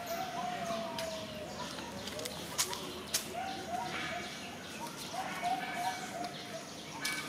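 Soft animal coos at a middle pitch: one long, slightly falling coo at the start, then short runs of four or five quick coos later on. Two or three sharp clicks fall between them.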